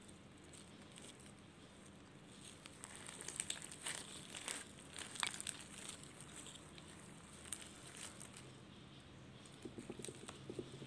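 Red glitter slime packed with foam beads being squeezed and kneaded by hand, giving a run of small crackles and pops, densest and loudest a few seconds in and again briefly near the end.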